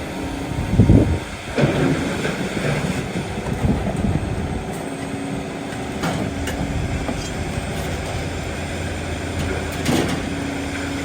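Scrapyard crane with a lifting magnet working over a load of scrap metal: its engine runs steadily while scrap knocks and clanks several times, loudest about a second in.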